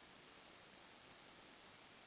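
Near silence: a faint, even hiss with nothing else standing out.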